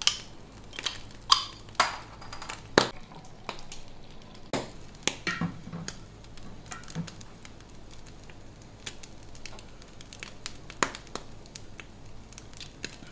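A beer bottle's cap is prised off with an opener in a sharp click, followed by a few clinks of bottle and glass. After that come scattered small pops and crackles from pig's trotters roasting on a charcoal grill.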